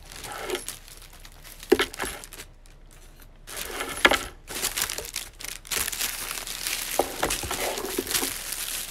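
Clear plastic packaging crinkling and rustling as it is handled and unwrapped, with two sharp snaps of plastic, about two and four seconds in. The rustling grows louder and denser over the last few seconds.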